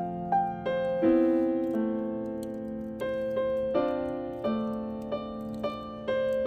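Background music: piano-like keyboard chords and a melody, each note struck and fading, the chords changing about once a second.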